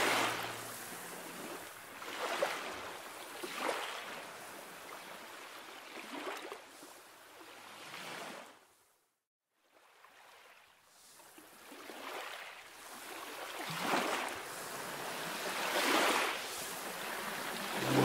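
Small waves washing and lapping around rocks in shallow seawater, swelling every second or two. The sound drops out briefly to silence about nine seconds in.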